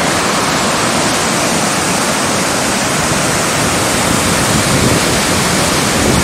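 River rapids in high spring meltwater flood: churning whitewater making a loud, steady rushing noise.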